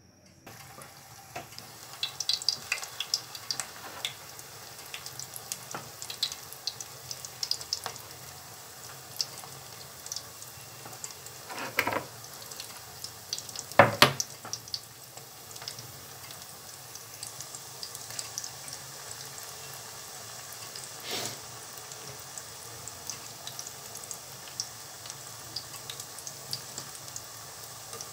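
Flattened dough rounds frying in hot oil in a pan, a steady sizzle full of small crackles and pops. A few sharp knocks stand out, the loudest about halfway through.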